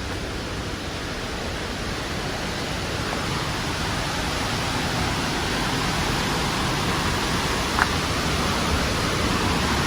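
Waterfall: a steady rush of falling water, growing gradually louder, with one brief tap a little before the end.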